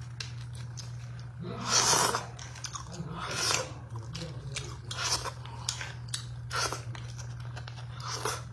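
Close-miked eating of beef bone marrow: a metal spoon scraping marrow out of the bone, and chewing in about five loud bursts roughly a second and a half apart, with small clicks between.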